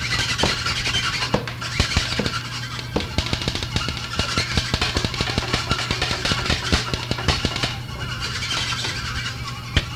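Lo-fi, home-recorded hard rock song played on thrashing home-made instruments: rapid, clattering percussion over a dense wash of distorted noise.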